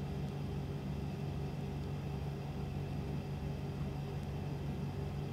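Steady low hum with an even hiss: background room noise, such as a fan or mains hum, picked up by the recording microphone.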